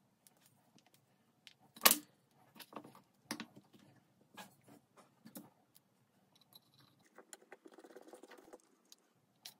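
Knocks and clicks of small wooden parts being handled and fitted, the loudest a sharp knock about two seconds in, then a short stretch of rapid scraping near the end.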